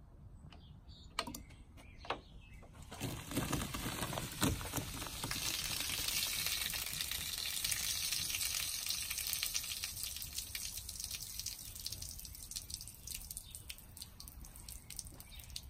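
A 2-litre bottle of diet cola erupting after Mentos are dropped in: after a couple of light clicks, a loud fizzing hiss starts about three seconds in as foam surges out of the bottle, peaks, and then slowly dies away as the foaming subsides.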